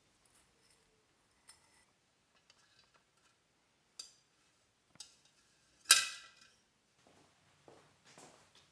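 Copper wire being wrapped around clay pots: a few light clicks, then one sharp metallic clink with a short ring about six seconds in, followed by soft rubbing and scuffing as the wire and pots are handled.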